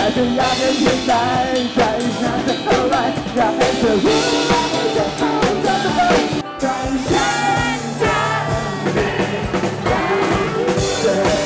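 Live band music: a singer on a microphone over electric guitar and a drum kit, with a steady beat.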